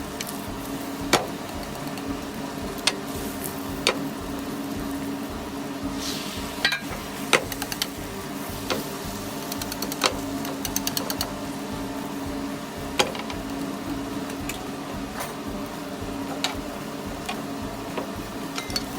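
Wood campfire crackling, with sharp single pops every second or so and a few quick runs of small crackles.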